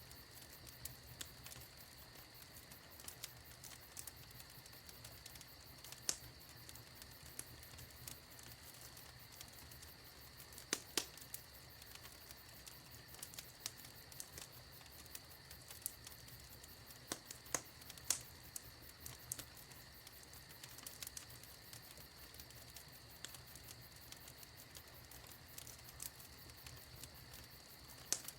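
Wood fire in a fireplace crackling: a soft steady hiss with many small pops and a few sharper snaps, the loudest clustered around the middle.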